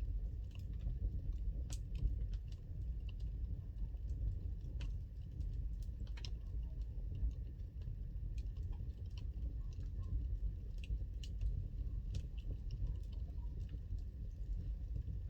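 Wood fire burning in a fireplace: irregular sharp crackles and pops from the burning logs over a low, steady rumble.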